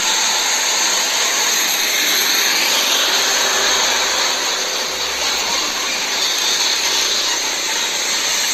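Fuel tanker truck driving past: a steady, even rushing noise with almost no deep rumble.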